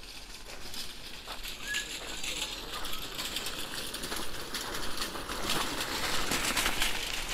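Footsteps crunching on a gravel path, a quick run of crackling steps that grows louder in the second half, with one short bird chirp about two seconds in.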